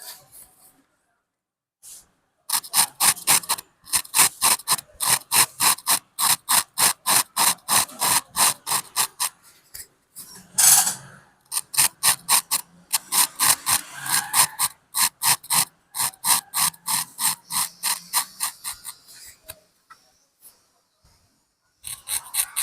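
Razor blade scraping hair off a scalp in quick, short, repeated strokes, with one longer, louder stroke about halfway through.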